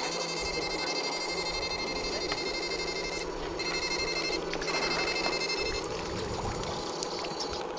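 High-pitched electronic whine of an electric fishing shocker, cutting out briefly twice and stopping about six seconds in, over a steady low hum.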